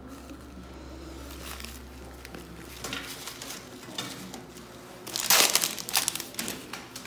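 Crinkling of wrapping, with faint rustles and then a loud burst a little past five seconds in, most likely a sterile instrument pouch being handled.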